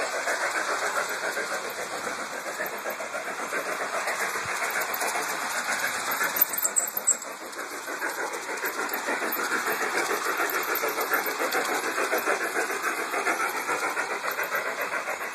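Large-scale garden model steam train running round its outdoor track: a steady, fast rattling rush. A couple of brief sharp high squeaks come a little after six seconds in.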